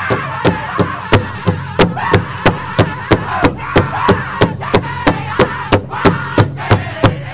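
Powwow big drum beaten by a drum group in a steady beat of about three strokes a second for a Men's Prairie Chicken dance song, with the singers' voices behind it, strongest in the first second or so.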